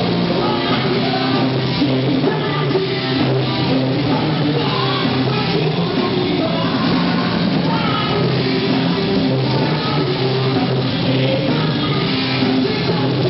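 Metal band playing live: distorted electric guitars, bass guitar and drums at full volume, with a vocalist singing over them.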